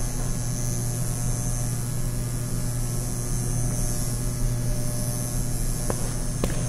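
Steady electrical hum with a high hiss from buzzing fluorescent ceiling lights. A few light taps come in near the end.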